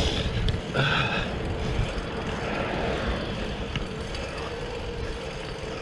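Steady road noise of traffic passing alongside a moving bicycle, with a low rumble of wind and tyres underneath.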